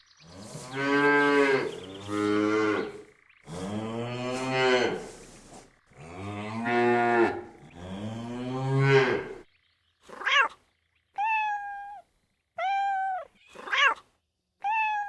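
A cow mooing, five long, low calls, followed from about ten seconds in by a cat meowing in five short, higher calls that each rise and fall.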